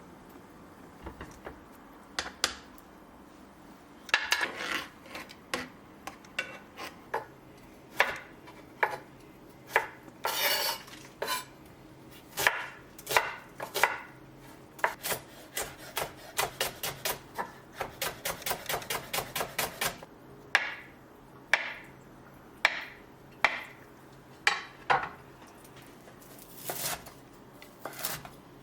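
Knife chopping on a cutting board: scattered single cuts, then a fast even run of about five chops a second, followed by a few slower strokes.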